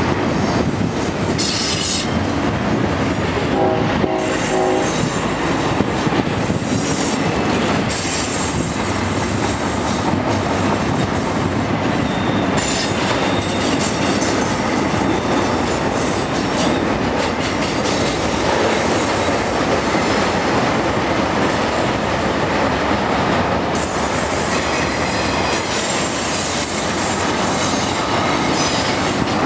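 Intermodal freight cars rolling steadily past: wheel and rail noise with clickety-clack over the joints and thin wheel squeals near the end. A short locomotive horn chord sounds about four seconds in.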